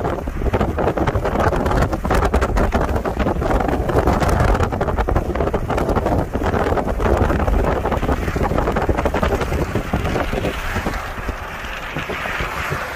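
Wind buffeting the microphone over the rumble of a car driving along the road, growing quieter near the end as the car slows.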